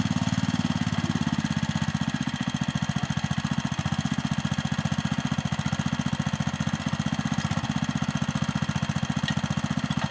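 Old engine of a Capung Metal mini paddy-field tractor running steadily, with a rapid, even beat.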